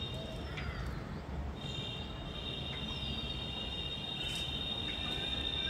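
A steady, high-pitched insect drone made of several close tones, which drops out about a second in and then resumes. Faint bird chirps and a low background rumble sit underneath.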